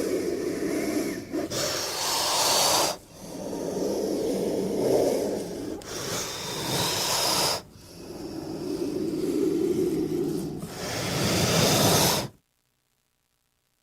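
King cobra hissing in long, drawn-out breaths of several seconds each, a low growl-like rumble under the hiss, about three in a row. It cuts off suddenly about twelve seconds in.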